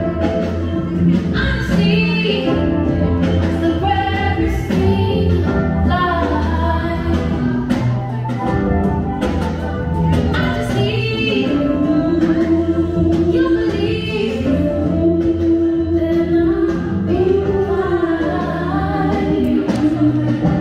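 Music: a song with a woman singing held, sliding notes over a steady bass line.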